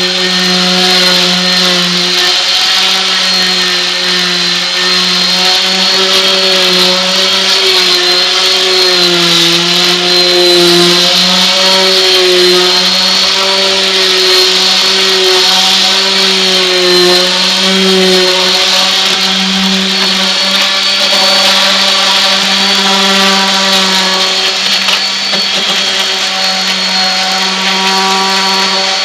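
Electric orbital palm sander with coarse 60-grit paper running steadily against wood siding, its motor hum wavering slightly in pitch as the pad is pressed and moved over the surface.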